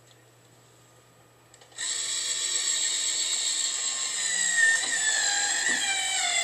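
Cordless drill driving a mounting screw: a couple of faint clicks, then about two seconds in the motor starts with a loud, steady whine that dips in pitch near the end as the screw bites.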